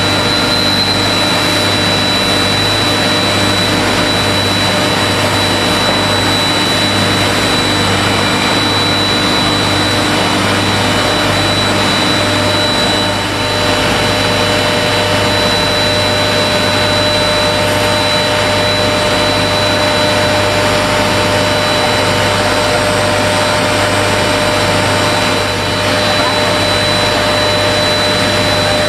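Steady machinery noise in a hot-coil spring forging plant, an even roar with a constant high whine and a low hum, unchanged throughout.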